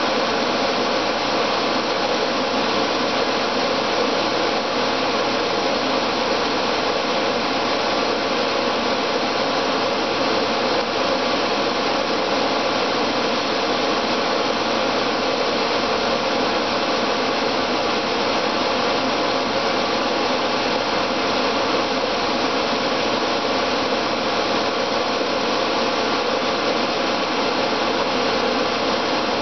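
Pool pump motor running with a steady, even whir and hum.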